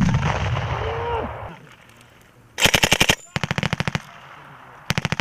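A sharp bang with a low rumble dying away over about a second and a half, then three short bursts of rapid automatic fire from a belt-fed general-purpose machine gun firing blanks.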